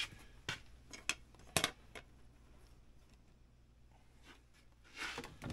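Light clicks and clinks of small screws and a snowmobile gauge plate being handled and set down, about five taps in the first two seconds. A short rustle follows near the end.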